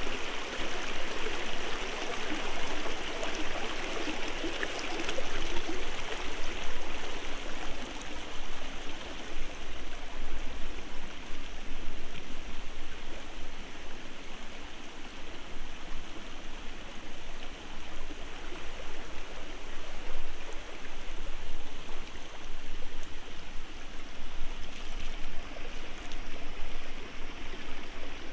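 Shallow, rocky forest stream, its water running steadily over and between stones in small riffles.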